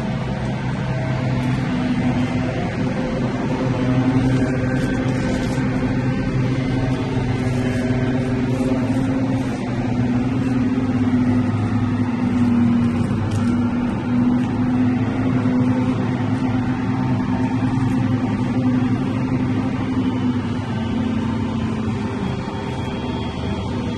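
An engine running steadily at a constant pitch, a continuous drone that swells and eases a little in loudness.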